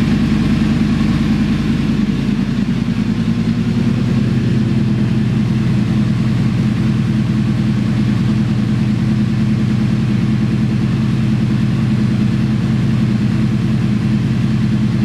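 A 2012 Yamaha R1's crossplane inline-four engine idling steadily while it is warmed up so the oil gets hot and thin before an oil change.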